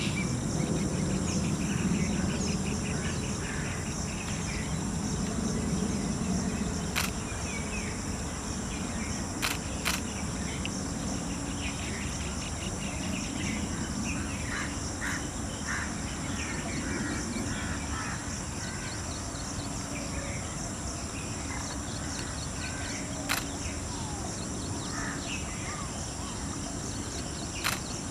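Outdoor natural ambience: a steady, high insect drone with scattered short bird calls and a few sharp clicks, over a low rumble in the first several seconds.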